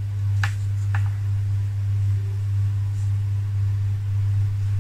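A steady low hum, with two faint light clicks about half a second apart near the start.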